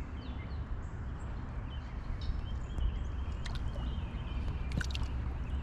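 Outdoor ambience by a river: a steady low rumble, a few faint high bird chirps, and several sharp clicks around the middle.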